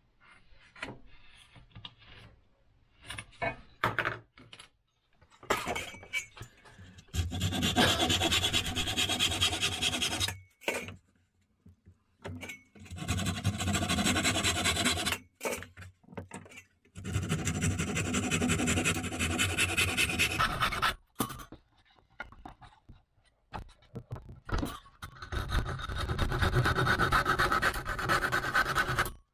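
Hand saw cutting a wooden strip clamped in a bench vise: four runs of quick back-and-forth saw strokes with short pauses between them. The first few seconds hold only light taps and clicks before the sawing starts.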